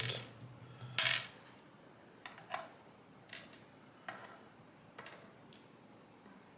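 Sharp metallic clicks and clinks as pins are taken out of a Kaba Gemini lock's cylinder. The loudest comes about a second in, followed by about six lighter ticks spaced out over the next few seconds.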